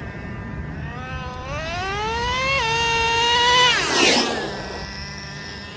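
Traxxas TRX 3.3 nitro engine of a Slayer Pro RC truck accelerating hard during its break-in run, the pitch rising steadily, dropping once about two and a half seconds in as the two-speed transmission shifts up, then climbing again. The truck passes close by about four seconds in with a brief rush of noise, and the engine pitch falls away as it goes past.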